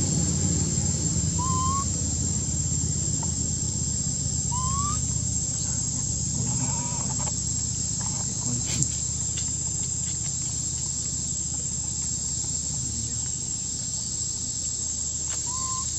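Outdoor ambience: a steady high-pitched whine and a low rumble that eases off in the first couple of seconds. Over it come a few short, rising, bird-like whistled calls, spaced several seconds apart, and a single sharp click about nine seconds in.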